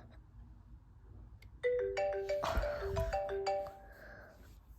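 An iPhone ringtone playing a short melody of quick, bright pitched notes, starting a little under two seconds in and lasting about two seconds, with a couple of knocks partway through.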